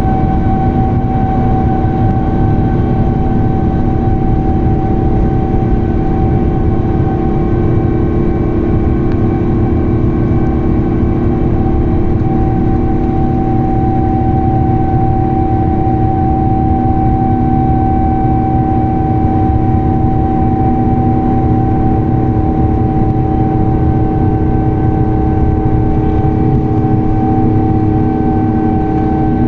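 Airbus A350's Rolls-Royce Trent XWB jet engines heard inside the passenger cabin: a loud, steady rumbling drone with a constant whine held on one pitch.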